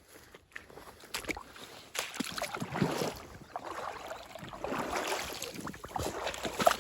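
Irregular rustling and crackling that turns busier about two seconds in.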